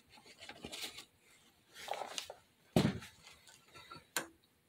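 Handling a paper bag of all-purpose flour: a few rustles and light knocks, then a thump about three seconds in, the loudest sound, as it is set down, and a sharp click shortly after.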